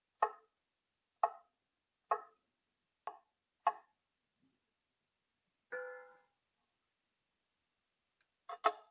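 Kitchen knife slicing cucumbers into rounds on a wooden cutting board: five sharp chops about a second apart. A short ringing tone follows about halfway through, and a few quick knocks near the end.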